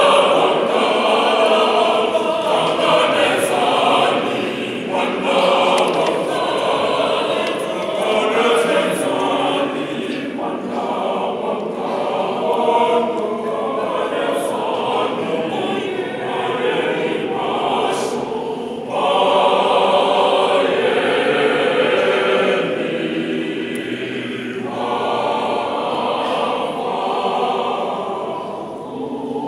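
Mixed choir of women and men singing together in parts. The singing grows louder about two-thirds of the way through, then eases off near the end.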